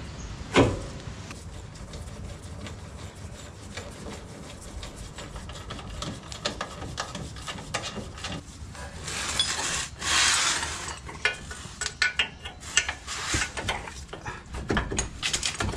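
A lift-kit front strut and coil-spring assembly being worked up into place in the suspension, metal rubbing and scraping against the mounts and arms. There is a sharp knock about half a second in, a longer scrape around the middle, then a run of small clicks and knocks.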